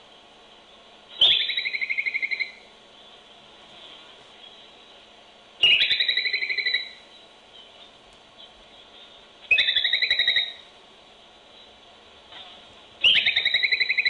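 Groundhog (woodchuck) whistles, four calls a few seconds apart. Each is a shrill whistle that drops at once into a lower, rapidly warbling trill about a second long: the alarm whistle that gives the 'whistle pig' its name. They come thin and band-limited through a baby monitor.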